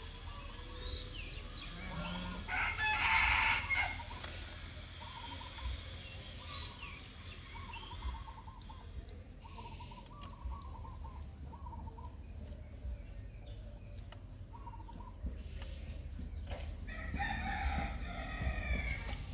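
Birds calling in the background: a string of short repeated calls, with two louder, longer calls about three seconds in and again near the end.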